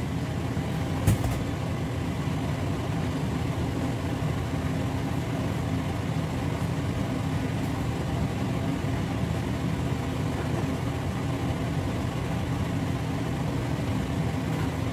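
Steady low rumble with one sharp metallic clink about a second in, as a stainless steel bowl is tipped against a frying pan of oil on a gas stove.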